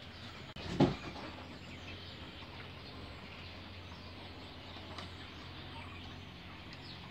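Faint, scattered peeping of quail chicks over a steady background hum. A single loud thump about a second in.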